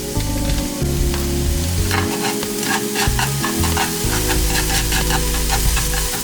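Food sizzling as it fries in oil in a pan and is stirred, with quick repeated stirring strokes from about two seconds in.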